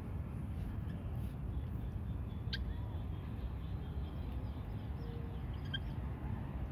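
A steady low rumble underlies a group of cats and kittens eating dry food, with a few faint, very short squeaks or clicks, one about two and a half seconds in and a pair near the end.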